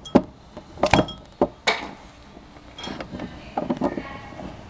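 Hard plastic Littlest Pet Shop toy figures tapping and clicking against the playset and each other as they are handled, a handful of sharp knocks with the loudest near the start and about a second in.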